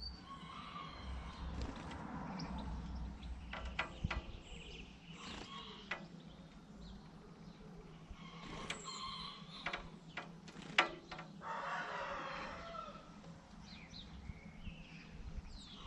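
Blue tit pecking at a window pane at its own reflection: scattered sharp taps on the glass, with faint bird chirps.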